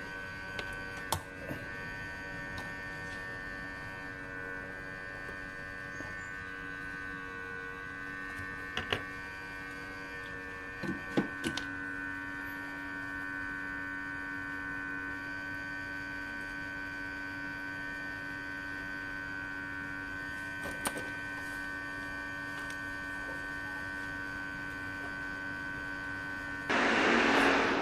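Hot-air rework station running steadily while a suspect MOSFET is desoldered from a laptop motherboard: a constant hum with a high whine on top, broken by a few light clicks.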